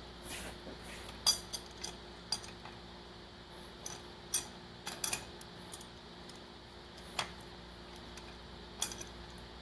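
Light metallic clinks and taps, about ten at irregular intervals, as tools and parts are handled during work on a 7.3 Powerstroke's rear main seal and wear ring.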